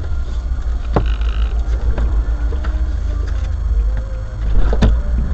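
Vehicle idling with a steady low rumble, heard from the vehicle itself, with two sharp clicks, one about a second in and one near the end.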